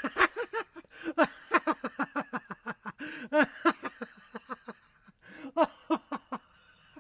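Laughter: quick runs of short, pitched 'ha' sounds, about five or six a second, in three bouts with brief pauses between them.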